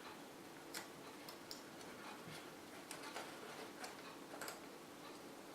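Faint, irregular small clicks and taps of a replacement part being handled and fiddled into place inside a record player.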